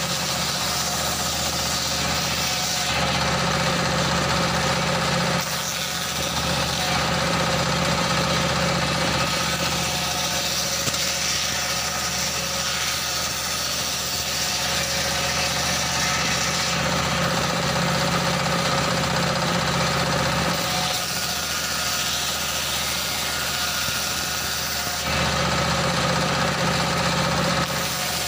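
Stationary single-cylinder diesel engine running steadily, driving a large circular saw blade that rips wooden planks. The hiss of the blade cutting wood sits over the engine's beat and grows and fades several times as boards pass through.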